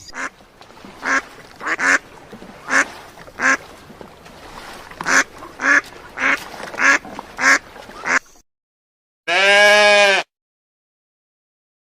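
Duck quacking: about a dozen short, separate quacks over some eight seconds. Then comes a pause and a single sheep bleat of about a second near the end.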